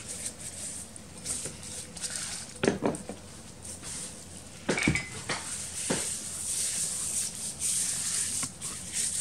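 Plastic-gloved hands rubbing oil and a dry spice rub into a raw whole chicken: steady rustling and squishing of the gloves on the wet skin, with a few sharp knocks against the plastic cutting board around the middle.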